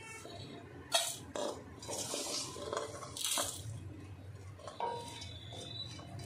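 Spatula scraping dry-roasted spices, grated dried coconut and garlic out of a kadhai into a steel bowl: rustling slides of dry seeds with a few sharp knocks of the spatula against the pan.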